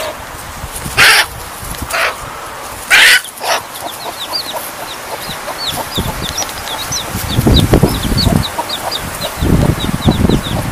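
A hen gives two loud, harsh squawks about a second apart, then chicks peep in quick, high, repeated chirps, several a second. Heavy low noise comes in near the end.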